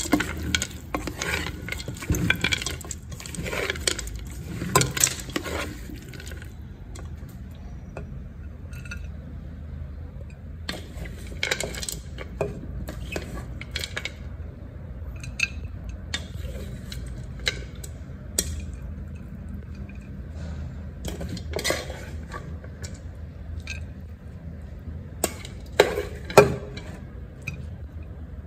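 A spatula scraping and tossing food in a stainless steel wok, with dense clattering for the first few seconds. Then scattered clinks and knocks of utensil on pan and plate as the food is served, the loudest near the end.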